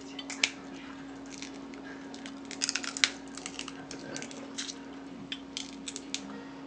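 Eating boiled snow crab legs: short snapping and clicking sounds of shells being cracked and picked apart by hand, and chewing, with a quick flurry of snaps about two and a half to three seconds in. A steady low hum runs underneath.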